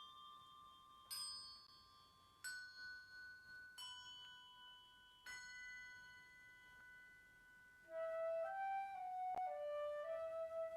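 Quiet instrumental music: four slow struck chime notes, each ringing on, then about eight seconds in a soft flute-toned melody begins, moving step by step between held notes.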